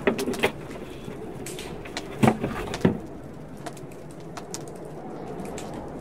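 Dishes and containers being handled on a wooden table: a quick run of clinks and knocks at the start, two louder knocks around the middle and a few lighter clicks, over steady background noise.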